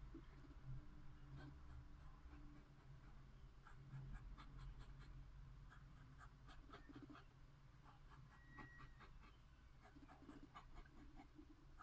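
Fountain pen nib scratching faintly on notebook paper in quick series of short strokes, drawing cross-hatched lines.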